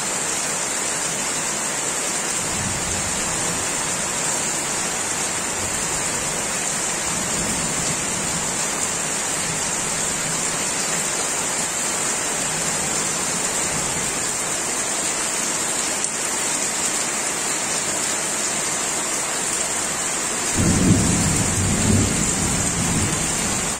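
Steady rain falling on leaves and ground, an even hiss. A low rumble swells up near the end.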